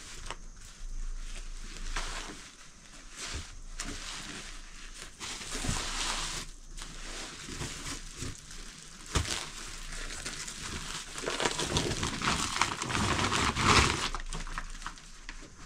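Cloth and plastic sheeting rustling and crinkling as they are folded and handled, with a few soft knocks; the crinkling grows denser and louder in the last few seconds as a plastic bag is lifted.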